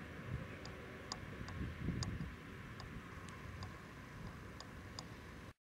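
Wind rumbling on the microphone, with about a dozen faint, irregularly spaced short high ticks over five seconds. The sound cuts off abruptly near the end.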